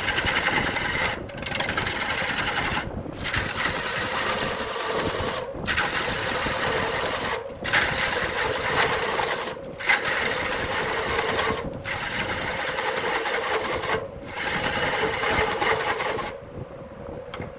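Wood lathe spinning a burl log while a turning tool cuts it: a steady running hum under the rough scraping of the cut. The cut breaks off briefly about every two seconds, then stops about sixteen seconds in, leaving the lathe running.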